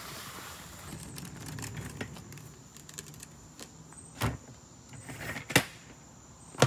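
DeWALT ToughSystem DS450 rolling tool box pulled along on its wheels, which rumble and rattle, then three sharp plastic clacks from the case and its telescoping handle as it is set down and handled, the second clack the loudest.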